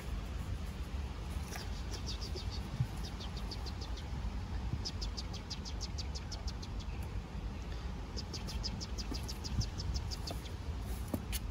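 A small bird singing in the background, a trill of rapid repeated high notes heard in several runs, over a steady low background rumble.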